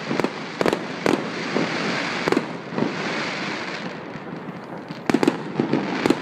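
Aerial firework shells bursting overhead in sharp, separate bangs, with a hissing crackle between them in the middle. A quick run of bangs comes near the end.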